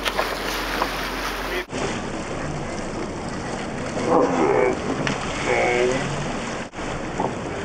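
Steady rushing wind and water noise on a boat at sea, with wind buffeting the microphone. About four seconds in, and again about a second and a half later, people call out briefly. The sound cuts abruptly twice.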